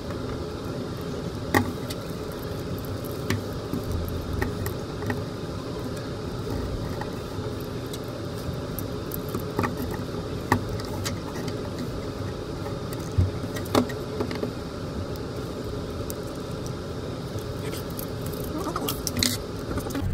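Steady whirring background hum, with scattered small clicks and rustles from hands handling a plastic toy leg and white electrical tape. A few sharper clicks stand out, and there are brief squeaky pulls near the end.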